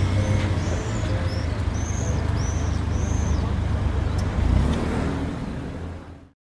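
Street traffic ambience: a steady low rumble of road vehicles, with a run of short high chirps over it in the first few seconds. It fades out about six seconds in.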